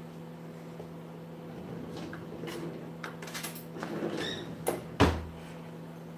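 Kitchen counter handling noises: scattered rustling and light clatter, a click, then a sharp knock about five seconds in, the loudest sound. A steady low hum runs underneath.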